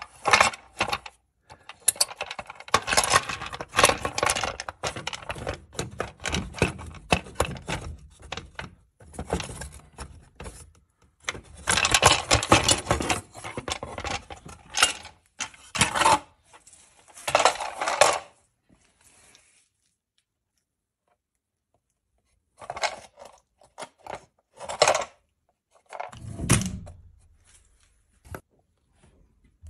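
Hand tools and metal parts clinking, rattling and scraping in irregular bursts, with a quiet stretch of a few seconds past the middle and a duller knock near the end.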